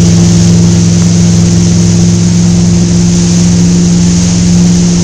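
Motorboat engine running at a steady pitch while towing a rider, over the rush of water from the wake.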